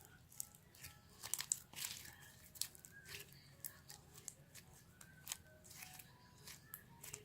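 Slime being squeezed, stretched and pulled apart by hand, giving irregular sticky pops, crackles and tearing sounds, busiest a second or two in.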